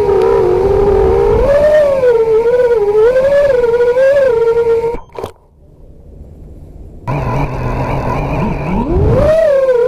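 FPV racing quadcopter's brushless motors (Dragonfly Hurricane 2207, 2500 KV) whining on three-blade props, the pitch wavering up and down with throttle. About five seconds in there is a sharp knock and the motors go almost silent for two seconds; they then come back with a low idle hum and spool up in a rising whine near the end.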